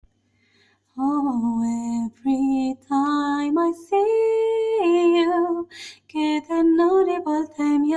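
A solo female voice singing a slow Korean pop ballad unaccompanied, starting about a second in, in short phrases with long held notes and a breath between them.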